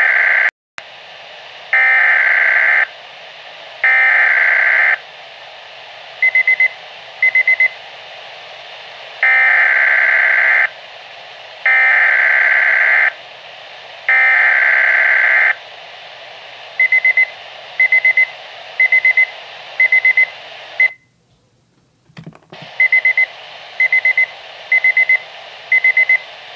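Electronic weather-alert tones over a hissing radio channel, signalling a severe weather alert. Loud beeps of about a second each, roughly one every two seconds, alternate with runs of short groups of rapid beeps. The sound cuts out briefly about three quarters of the way through.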